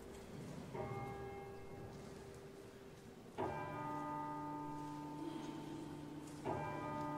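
Bells struck slowly, three strokes about three seconds apart, each left to ring on; the later two strokes are lower and louder.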